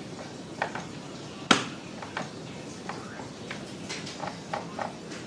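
Scattered clicks and knocks of an electric drill's parts being handled. The loudest is a sharp knock about one and a half seconds in, followed by about eight lighter clicks.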